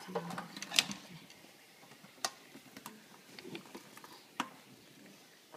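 Live mud crabs shifting in a stainless steel sink: scattered sharp clicks and taps of shell and legs against each other and the steel, the loudest about a second in, a little after two seconds and past four seconds.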